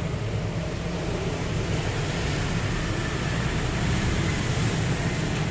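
Steady workshop background noise: a low hum with an even hiss over it, unchanging, with no distinct event.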